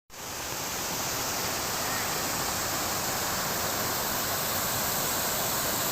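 Steady rushing of water falling at a small waterfall, fading in at the start.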